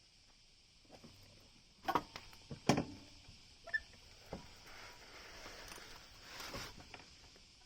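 Handling noises from work on a scooter wheel: a few sharp knocks and clicks, the loudest about two to three seconds in, then a soft rubbing or scraping noise that fades near the end.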